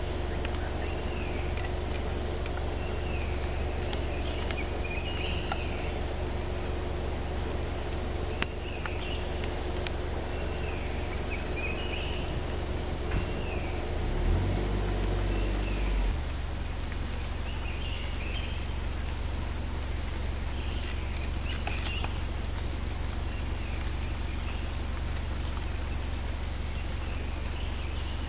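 Forest ambience: birds call again and again with short slurred calls over a steady high insect drone, with a low steady rumble underneath that swells briefly about halfway through.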